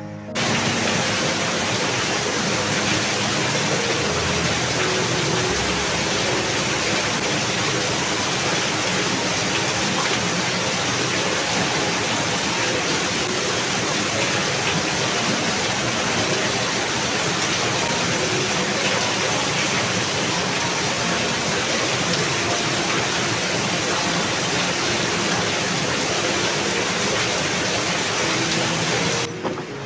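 Steady rush of a shallow forest stream running over rocks.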